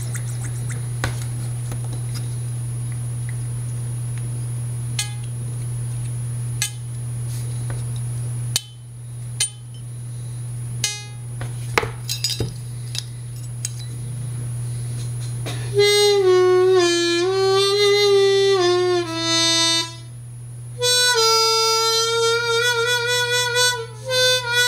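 Small metallic clicks and clinks over a steady low hum. Then a Seydel 1847 Richter harmonica in A is played: a note bent down and up in steps, a brief gap, and a higher note held with a slight waver. This demonstrates the overblow now set up on hole 4.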